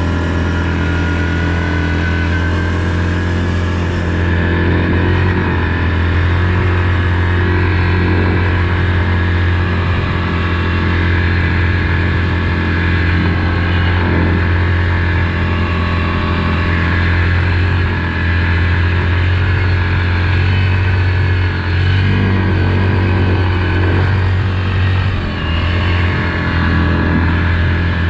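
Yamaha Grizzly EPS SE ATV's single-cylinder engine running steadily under throttle as the quad picks up speed.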